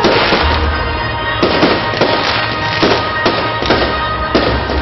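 Aerial fireworks shells bursting in an irregular, rapid series of bangs, about two to three a second, with music playing underneath.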